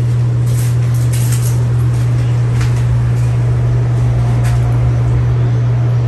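Regency Cabana ceiling fan running, its motor giving a strong, steady low hum, with a few faint clicks here and there.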